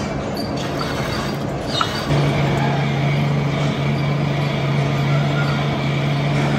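Heavy machine-shop machinery running with a steady low hum that steps up louder about two seconds in, over general workshop noise with a few light clicks.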